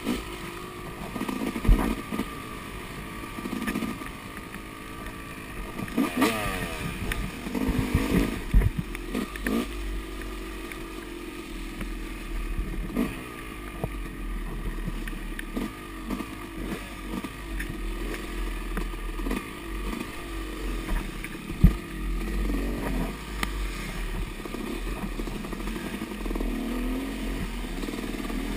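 Yamaha dirt bike engine in the 86–200 cc class, revving up and down as it is ridden hard along a rough trail. Sharp knocks and clatter come from the bike jolting over the ground, the loudest about 2, 8 and 22 seconds in.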